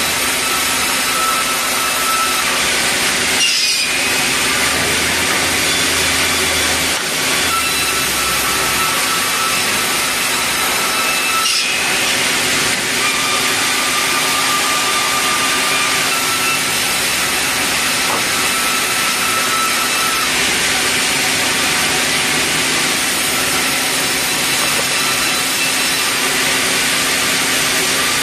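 Sawmill band saw running and ripping red meranti planks into boards: a loud, steady noise with a whining tone that comes and goes as the blade cuts.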